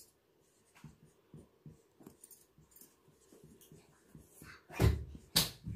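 Marker writing on a whiteboard: faint scratchy strokes and small taps as words are written, then two louder sharp knocks near the end.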